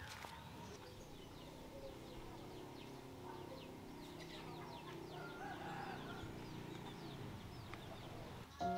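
Faint outdoor ambience of chickens clucking, with short high bird chirps over a low steady hum. Music starts near the end.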